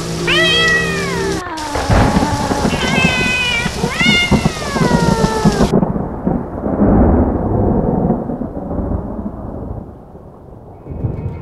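Spooky sound-effects track: cats yowling, three long cries that slide down in pitch, over a long roll of thunder that rumbles on after them and fades away near the end.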